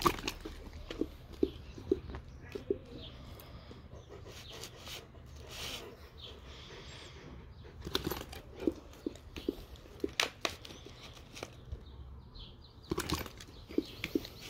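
A dog chewing pieces of raw heart, with wet smacking clicks of its jaws in short runs of about two a second.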